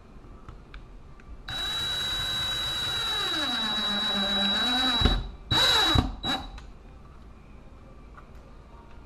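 Cordless drill driving a screw through a thermostat base plate into drywall. One run of about three and a half seconds in which the motor's pitch falls as the screw bites in, then two short bursts to snug it.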